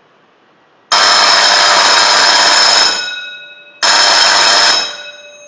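Electric gong bell of an automatic school bell system ringing in two bursts: about two seconds of ringing, a pause of about a second, then a shorter second ring of about a second. The gong hums on with lingering tones as each burst dies away. The controller is timed for two seconds on, one second off.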